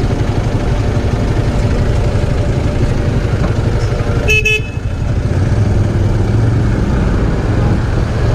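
Steady low engine rumble of a motorcycle and the city buses around it in slow traffic. A vehicle horn gives one short toot about four seconds in.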